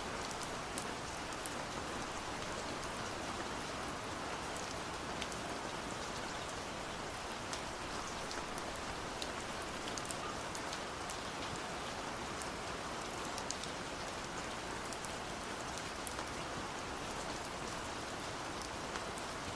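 Steady gentle rain: an even hiss with scattered individual drops ticking.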